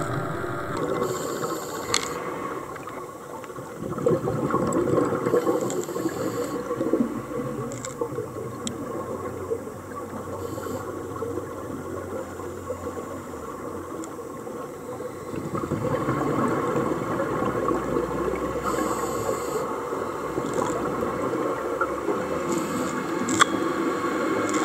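Muffled underwater sound picked up by a diving camera: scuba regulator breathing and rumbling exhaust bubbles. It swells louder about four seconds in and again from about fifteen seconds on.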